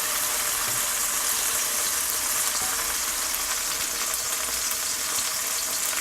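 Chopped green onions frying in oil in a pan, with a steady sizzle.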